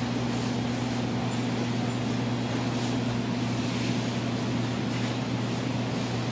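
Steady low mechanical hum over an even background hiss.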